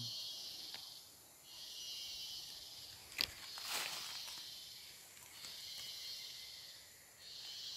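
Insects buzzing in a high, hissing drone that swells and drops away about every two seconds. A sharp click and a brief rustle come about three seconds in.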